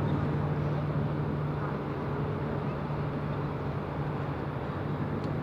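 Steady low drone of a ship or boat engine running at a constant pitch, over a wash of outdoor background noise.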